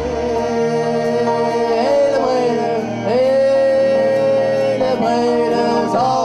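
Live band music: voices sing long, drawn-out notes, each sliding up into pitch and held for one to two seconds, over keyboard and hand percussion.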